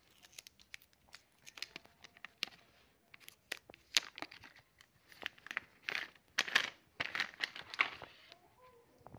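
Plastic packaging crinkling and tearing in the hands as a new smartphone is unwrapped: a busy run of short crackles and clicks.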